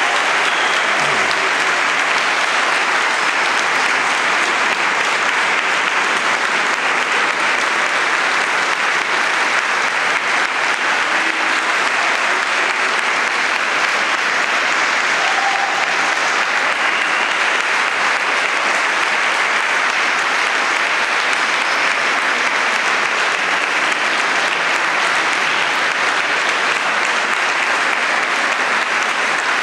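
Audience applauding steadily, a dense, even clapping that goes on without a break.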